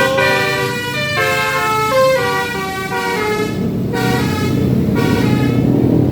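Basuri telolet horn on a tour bus playing a tune of several notes sounded together, changing pitch in steps every half second or so. In the second half the horn fades and the low rumble of the bus's engine takes over as the bus passes.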